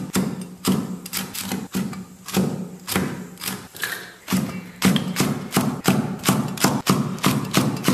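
Chinese cleaver chopping chillies on a thick wooden chopping block: a steady run of sharp knocks, about three a second at first and faster, about four or five a second, in the second half.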